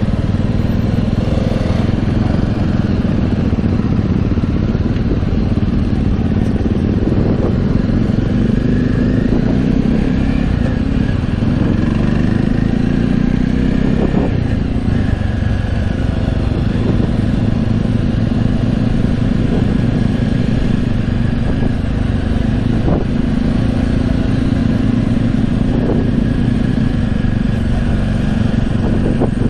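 Jawa 42's single-cylinder engine running steadily at low road speed in traffic, heard from the rider's seat along with road and wind noise, with a few faint knocks.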